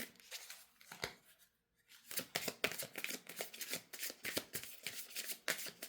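A large tarot deck being shuffled by hand: a few card clicks, a brief pause about a second and a half in, then a fast, dense run of card flicks from about two seconds in.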